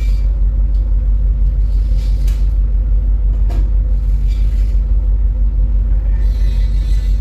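Steady deep rumble with a constant low hum of heavy machinery.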